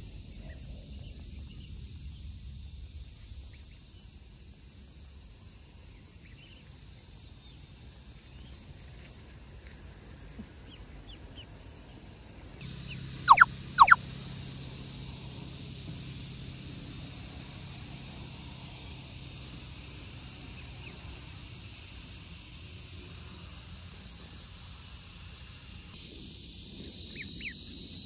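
Steady high insect chorus from crickets or cicadas, with faint scattered peeps and two loud, sharp duckling peeps in quick succession about halfway through.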